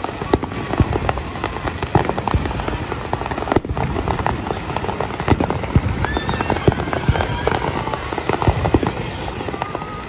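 Fireworks display going off, a dense run of bangs and crackling with no let-up, and a brief whistling tone about six seconds in.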